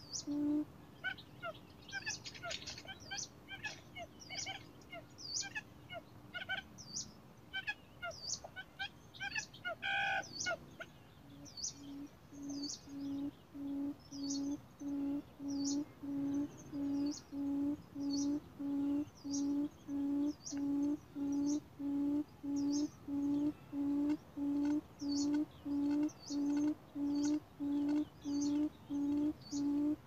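Chim cút (buttonquail) lure call: a low hooting note repeated about twice a second. It stops shortly after the start and resumes a little past the middle, steady from then on. Small birds chirp high and quick through the first part, with one louder call about ten seconds in.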